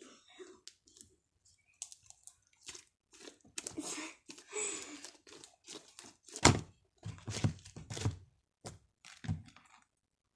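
Blue slime being squeezed and kneaded by hand, giving off irregular squishing and crackling sounds. About six and a half seconds in comes a sharp, loud thump, with a few softer knocks after it.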